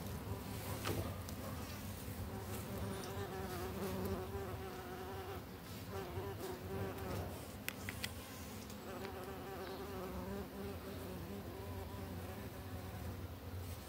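Insects buzzing: a wavering hum that fades and returns several times. Two brief sharp clicks come just past halfway.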